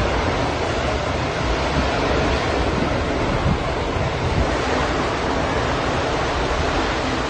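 Steady rushing noise of a burning gas leak: gas escaping under pressure and burning as a tall jet of flame, unbroken throughout.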